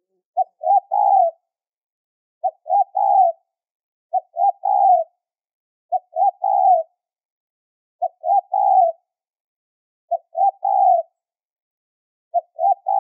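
Spotted dove (tekukur) cooing, a high-pitched lure song. Its three-note phrase, two short coos and then a longer one, repeats seven times about every two seconds.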